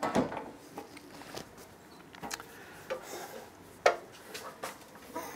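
Scattered light knocks and clicks from handling the Laguna 14BX bandsaw's upper wheel housing and cover door, the sharpest about four seconds in.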